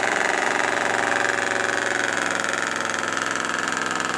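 Stock gasoline pickup truck engine running hard under load as the truck pulls a weight-transfer sled, a steady engine note whose pitch sags slightly partway through.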